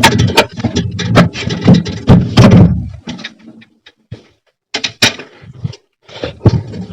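Parts being handled and knocked against each other: a run of clatter and knocks for about three seconds, then a near-silent stretch broken by a few sharp clicks about five seconds in.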